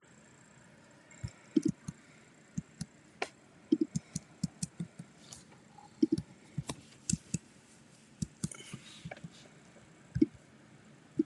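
An irregular series of light clicks and soft knocks, a dozen or more, with short gaps between them.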